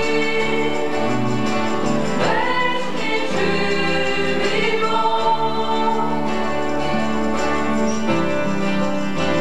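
A mixed group of singers singing a praise song together, backed by a live band with bass guitar and guitars; the voices hold long notes over steady bass notes.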